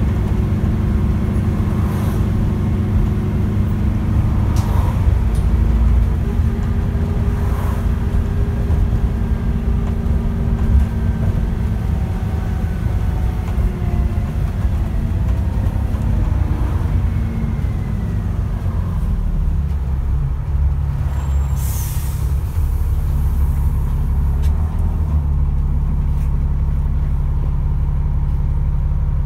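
Interior sound of an Alexander ALX400-bodied Dennis Trident double-decker bus under way: a steady low engine and drivetrain drone with a whine that shifts in pitch as it changes speed. A short hiss of air from the brakes a little past two-thirds through.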